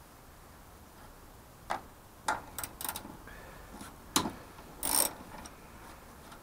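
Ratchet spanner working the strut-top nuts: a few scattered metallic clicks and clinks, the loudest about four seconds in, followed by a short burst of clicking about a second later.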